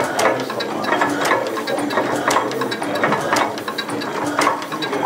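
Antique Foos stationary gas engine running, its valve gear and governor clicking and clattering in a steady rhythm, with a stronger stroke about once a second. Its exhaust is piped outside, so the mechanical clatter is heard rather than the exhaust.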